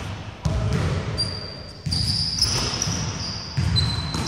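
Basketball bouncing on a hardwood gym court during play, with short high-pitched squeaks of sneakers on the wooden floor.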